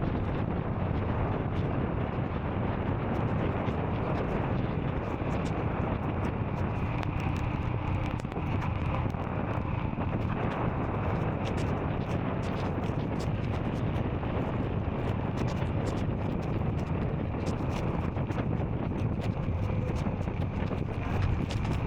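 Royal Enfield Scram 440's single-cylinder engine running steadily under way, with wind noise buffeting the microphone.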